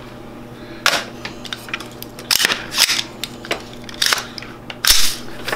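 AR-15 rifle being cleared: the action is worked and a chambered .223 cartridge is ejected, in a series of about five sharp metallic clicks and clacks, the loudest near the end.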